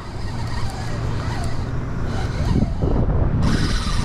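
Wind buffeting the action-camera microphone as a steady low rumble. Near the end a brief bright hiss lasts under a second.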